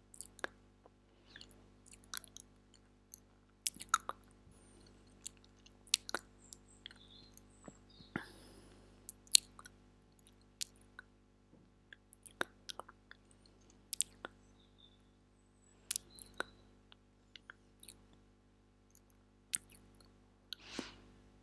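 ASMR mouth sounds made close into a clip-on lavalier microphone: scattered sharp clicks and smacks at an irregular pace, over a faint steady electrical hum.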